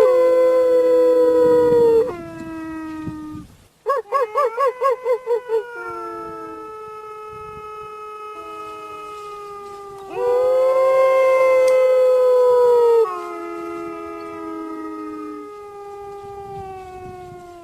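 Wolves howling in chorus: long held howls from several voices overlapping at different pitches, each sliding down at its end. About four seconds in, one howl wavers about four times a second.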